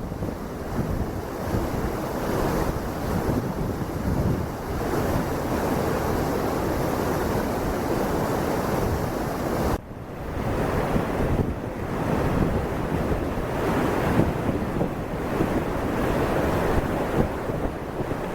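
Steady roar of rushing water, with wind buffeting the microphone; the sound breaks off briefly about ten seconds in and resumes.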